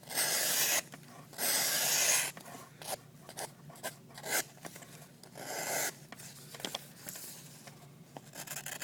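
Freshly sharpened SOG Aegis knife blade slicing through a sheet of paper: a few short cutting strokes, the two longest in the first two seconds and shorter, quieter ones after.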